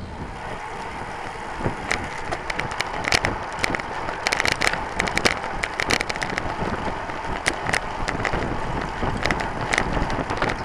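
Road-bike riding noise picked up by a handlebar-mounted camera: steady wind and road rumble with frequent sharp rattling clicks and crackles, most of them between about two and ten seconds in.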